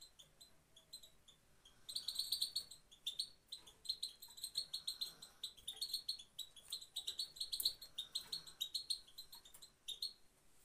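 Female goldfinch giving its short, high 'pit pit' call note over and over in quick runs of several chirps a second. There is a brief lull about a second in, and the calls thin out near the end.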